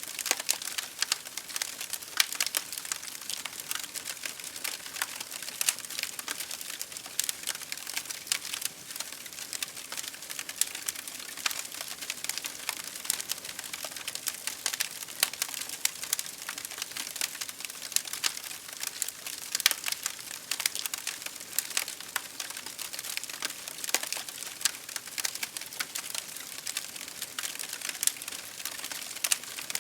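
Campfire burning, wood crackling with frequent sharp pops and snaps over a steady hiss.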